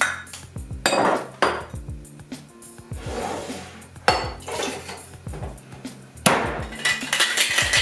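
Glassware clinks and knocks as a green mixture is poured from a measuring glass into a stainless cocktail shaker tin, then a sharp knock as the glass is seated on the tin. Near the end, a fast, even rattle starts as the shaker is shaken. Background music plays underneath.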